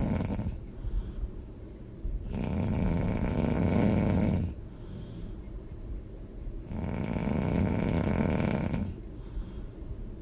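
A person snoring loudly in a steady rhythm. Two long snores of about two seconds each come roughly four seconds apart, with the tail of another at the start and softer breathing in between.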